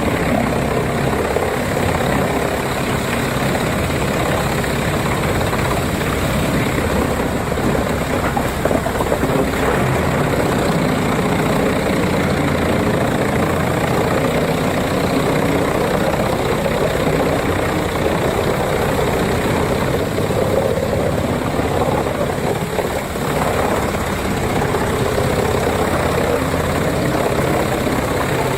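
Large wood chipper running steadily, its engine noise dense and unbroken.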